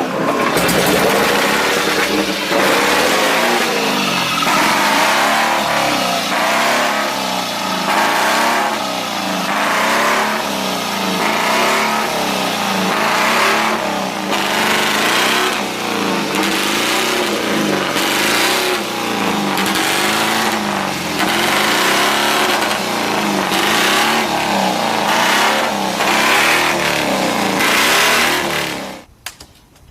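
Motorcycle engine being revved over and over, its pitch rising and falling every second or two, then stopping abruptly near the end.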